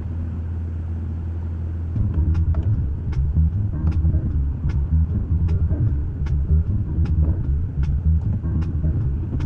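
Truck engine running with a steady low hum; about two seconds in, the rumble grows louder and uneven, with light scattered clicks over it.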